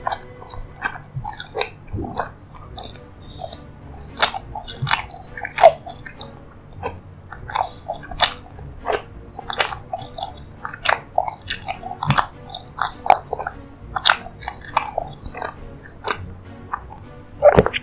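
Close-miked eating of a soft, sticky dessert: a run of irregular wet chewing and biting clicks and smacks.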